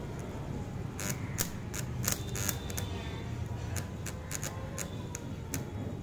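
AC stick arc welding with a homemade microwave-oven-transformer welder: the arc crackles and pops irregularly over a steady low buzz.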